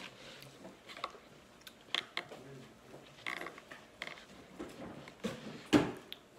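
Plastic forks scraping and clicking against paper food cups and boxes, in scattered short taps, with one sharper knock near the end.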